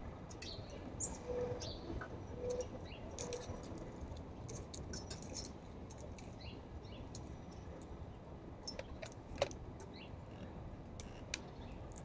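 Small birds chirping at a backyard feeder, with scattered short clicks and taps and one sharper tap about nine seconds in. Three short low notes sound in the first few seconds.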